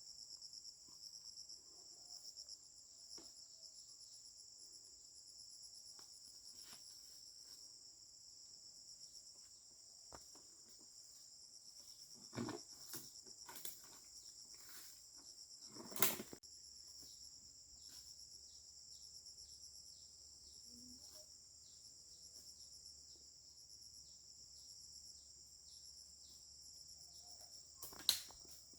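Insects chirring steadily at a high pitch with a fine, even pulse. A few sharp knocks cut through: a cluster around 12 to 14 seconds in, the loudest about 16 seconds in, and another near the end.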